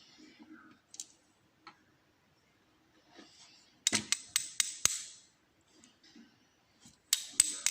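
Small metal parts of a disassembled pin-tumbler lock clicking and rattling as it is taken apart: a quick run of sharp clicks about four seconds in, and another starting near the end.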